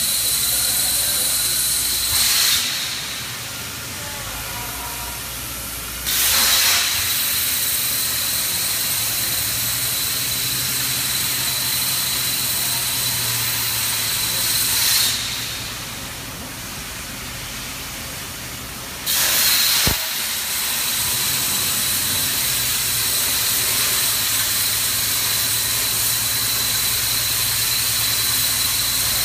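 Robotic plasma cutter cutting steel: a loud, steady hiss with a thin high whine. Twice, about 2 s and 15 s in, it drops to a softer hiss for a few seconds, then jumps back to full loudness, with a sharp click at the second restart.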